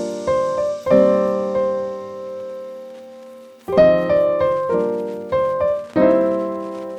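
Background piano music: struck chords left to ring and fade, with new chords about a second in and again from about four seconds.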